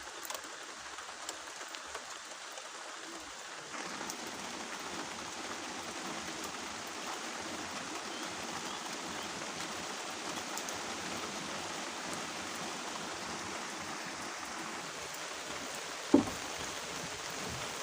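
Steady hiss of rain and rushing floodwater, growing louder about four seconds in, with one sharp knock near the end.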